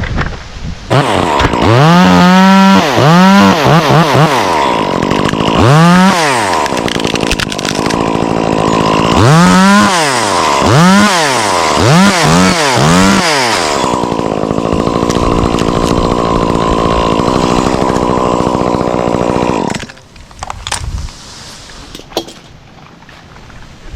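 Stihl two-stroke chainsaw revved up and down in a series of quick blips, then held at high revs steadily for about six seconds before dropping away about four seconds before the end.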